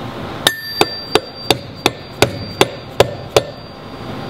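Soft-faced mallet tapping the rotor of a MAGPOWR Global Series magnetic particle brake: nine quick, even taps, about three a second, seating the external snap ring against the bearing.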